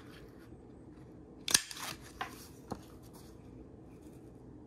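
Handheld single-hole paper punch snapping through cardstock: one sharp click about one and a half seconds in, followed by two fainter clicks.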